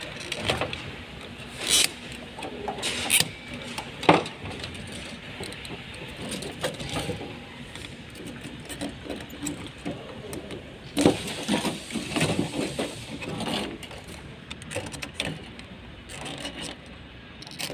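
Fuel pump assembly parts being handled and pried apart: scattered clicks and knocks with rubbing and scraping in between, as the strainer and its locking clips are worked loose.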